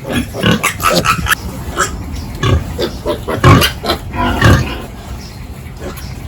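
Pigs grunting: many short, irregular calls overlapping one another, the loudest a little over halfway through.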